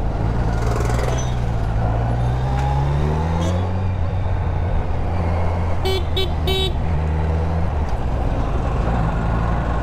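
Kawasaki Z900's 948 cc inline-four engine running under way, its pitch rising as it accelerates over the first few seconds, then steady. A vehicle horn gives three short toots about six seconds in.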